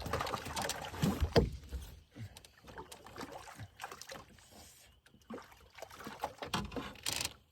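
Irregular knocks, bumps and rustling as a freshly caught small brook trout and the fishing gear are handled, loudest in the first two seconds and then scattered and fainter.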